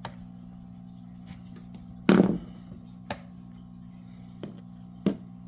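Handling noise from crochet supplies being picked up and set out: a few light knocks and clicks, one louder clack about two seconds in, over a steady low hum.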